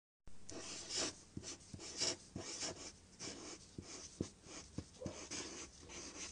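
Pen or marker writing on paper: a quick run of short scratchy strokes, about two a second, with light taps between some of them.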